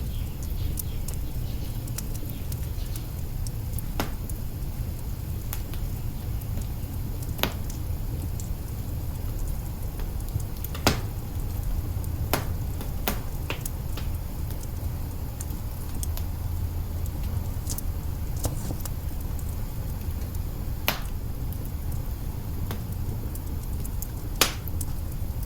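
Wood fire burning in an open hearth: a steady low rumble of the flames with irregular sharp crackles and pops, a louder pop about eleven seconds in and another near the end.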